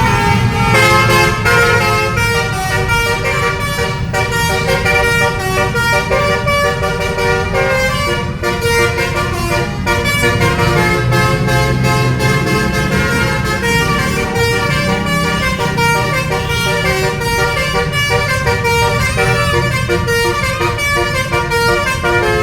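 Bus "telolet" musical air horn of the Basuri type playing a tune: several horn notes sounding together, stepping from note to note every fraction of a second without a break. A bus engine runs underneath.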